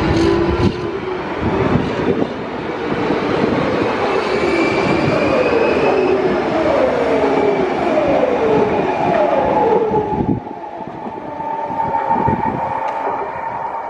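Renfe Cercanías electric commuter train's traction inverter and motors whining over wheel-on-rail rumble. There is a steady tone, and a run of falling pitch sweeps about once a second. The sound drops suddenly about ten seconds in.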